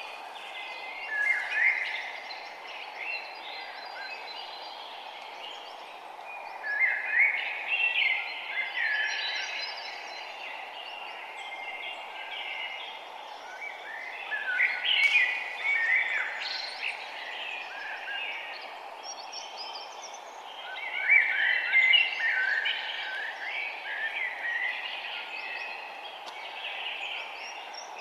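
Songbirds singing in the forest, dense bursts of quick chirping phrases coming back about every six to seven seconds, over a steady background hiss.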